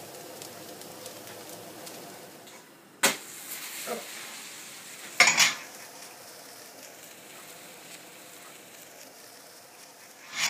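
Grated-potato crique frying in butter in a frying pan, a steady sizzle, with a sharp click about three seconds in and a brief clatter of the pan about five seconds in.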